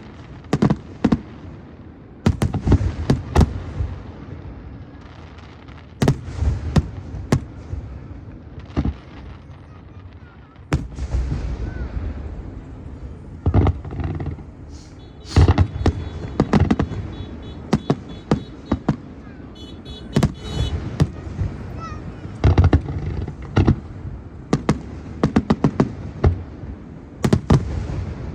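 Aerial fireworks display: repeated sharp bangs, often in quick crackling clusters of several shots, with low booms rumbling between them.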